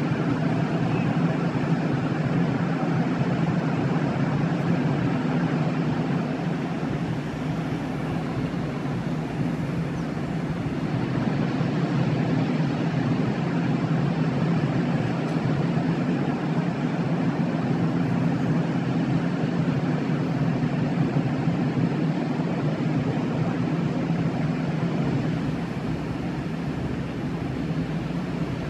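Steady low rumble of distant city traffic, even and unbroken.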